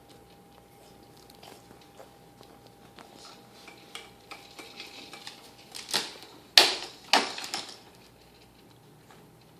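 A baby blowing raspberries: three or four short lip buzzes between about six and seven and a half seconds in, the second the loudest, after several seconds of faint small clicks.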